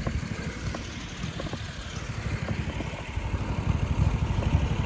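Lawn mower engine running with a steady low throb, growing louder over the last two seconds or so.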